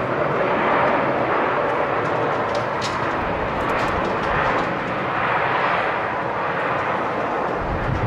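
Twin jet engines of an Airbus A330 airliner running on the runway: a steady, even rushing noise that holds at the same loudness throughout.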